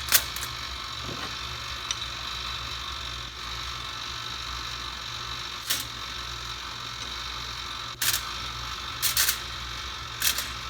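A toaster oven and its foil tray being handled: several short, sharp clicks and knocks spaced a second or more apart, over a steady low hum.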